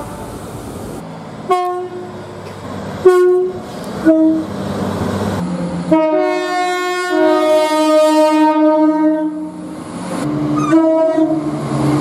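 A run of train horn blasts cut together: three short sharp blasts in the first four seconds, then a long two-tone horn from a diesel multiple unit lasting about three seconds, and another short blast near the end, all over the rumble of moving trains.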